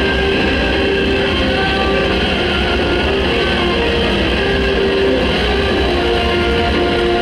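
Loud, dense noise music: a steady wall of distorted sound with held tones that shift in pitch every second or two.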